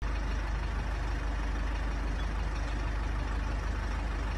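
Steady low rumble under an even hiss of outdoor background noise.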